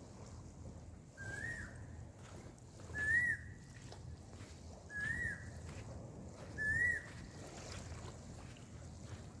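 A bird calling four times, each call a short whistled note that rises and then falls, about every two seconds, over a low steady rumble.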